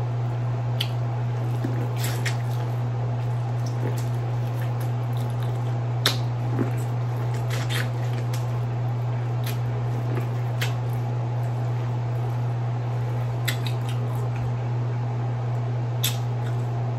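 Close-up eating sounds of someone chewing corn on the cob: scattered wet mouth clicks and smacks every second or two, over a steady low hum.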